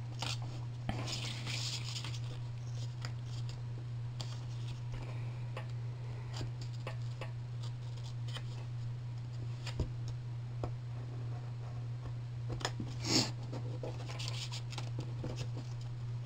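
Hobby knife blade scoring and scraping through cardstock on a cutting mat, in short faint scratchy strokes with occasional small clicks, over a steady low hum.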